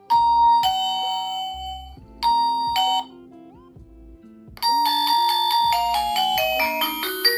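Wi-Fi siren playing its built-in alert chimes: a two-note ding-dong, then a short two-note chime, then a quick run of electronic tones stepping downward in pitch near the end.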